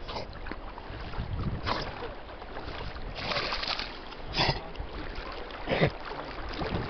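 Wind rumbling on the microphone over moving river water, with several short splashy bursts of water as a swimming dog comes in close.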